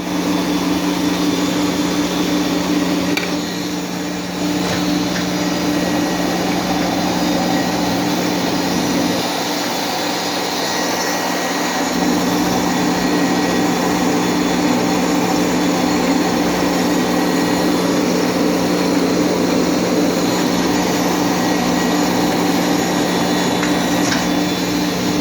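Herald Red Head internal grinder running, grinding the bore of an arbor cutter: a steady motor hum under a continuous grinding hiss, dipping briefly about four seconds in.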